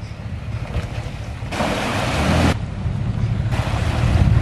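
Pickup trucks, a Toyota Tacoma and a Ford F-150, driving through a muddy water crossing: a low engine rumble with the tyres splashing through the water, loudest about a second and a half in and again near the end.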